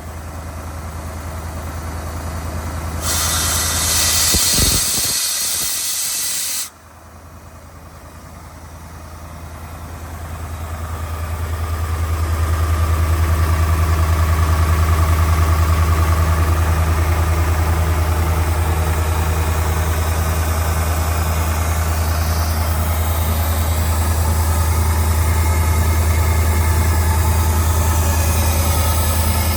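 Atlas Copco XAS 350 portable air compressor's Deutz diesel engine running. About three seconds in, a loud hiss of compressed air blowing off lasts a few seconds and cuts off suddenly. The engine then drops quieter and builds over several seconds to a steady loud run.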